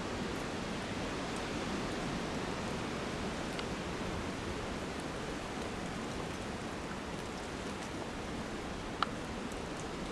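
Steady wind noise in open country, an even rushing hiss, with one faint click about nine seconds in.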